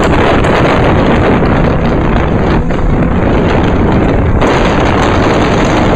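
Sprint car's V8 engine running hard at racing speed, heard from an onboard camera: loud and unbroken, with a brief dip about two and a half seconds in.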